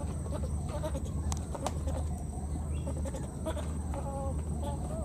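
Short, high-pitched animal calls repeating every second or so over a steady low rumble, with a couple of sharp clicks about a second and a half in.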